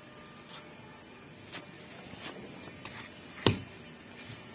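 Kite-string spool (charkhi) being handled: a few light clicks and taps, then one sharp knock about three and a half seconds in as the spool is jammed into a gap in a brick wall.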